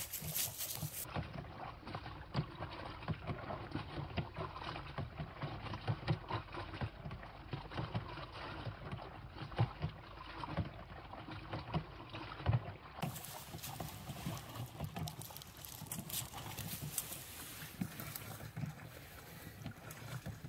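Hand-lever agitator washing machine with a stainless steel tub, sloshing water with irregular knocks as the lever is pumped back and forth.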